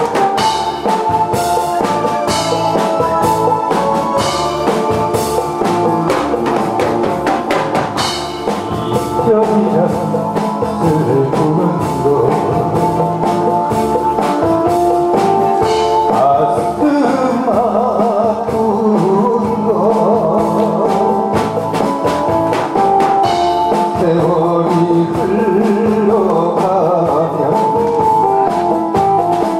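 Accompaniment music with a drum-kit beat and held instrumental notes; a wavering melody line comes in about nine seconds in.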